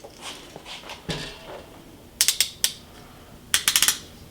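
Retractable utility knife's blade slider clicking as the blade is pushed out notch by notch. The clicks come in two quick runs, one about two seconds in and one near the end.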